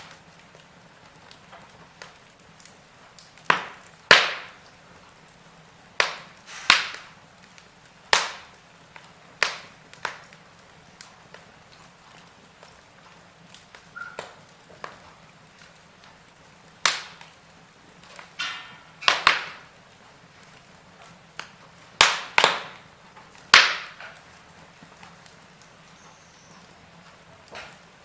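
Wood fire in a fireplace crackling, with sharp irregular pops, sometimes two close together, over a low steady hiss. The pops come thickest in the first ten seconds and again past the middle, with quieter stretches between.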